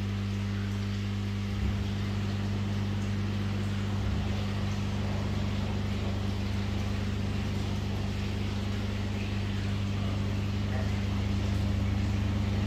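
Steady electric hum of koi-tank pumps and aeration equipment over a constant hiss of moving water, with a light low bump about two seconds in and another about four seconds in.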